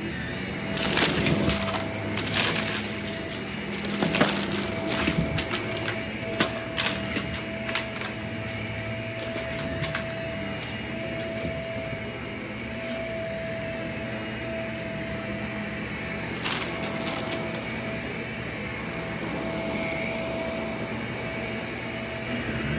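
Shark vacuum cleaner running on shag carpet with a steady motor whine. Crackling and rattling of debris being pulled through it, thick for the first several seconds, then again briefly about two-thirds of the way in.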